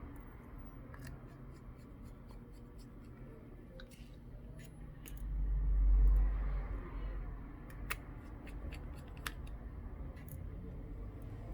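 Light clicks and ticks of a small precision screwdriver and tiny screws being worked into a smartphone's frame, with a low rumble of handling swelling about halfway through.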